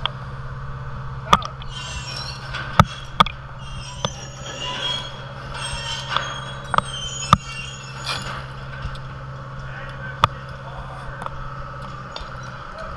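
Crane engine running with a steady low hum that fades out near the end, while a concrete seawall panel is lowered into place. Several sharp knocks come through at irregular intervals.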